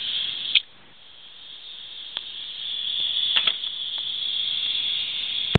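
Airbrush spraying weathering paint: a steady high hiss that stops with a click about half a second in, builds back up over the next second or two, and cuts off sharply near the end.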